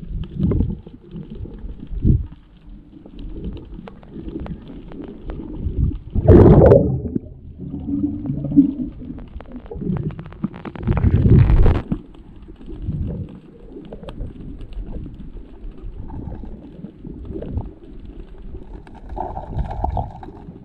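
Muffled underwater sound picked up by a submerged camera: low rumbling and gurgling of water and bubbles, rising in two louder surges about a third and halfway in.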